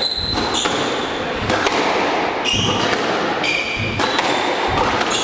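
Squash rally: the ball cracks off rackets and the court walls at irregular intervals, and rubber-soled court shoes squeak in short chirps on the wooden floor as the players change direction.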